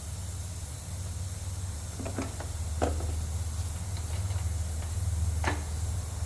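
Steady low hum under a few sharp clicks and light knocks: hands working on a pressure washer, handling its parts and tools, twice around two to three seconds in and once more near the end.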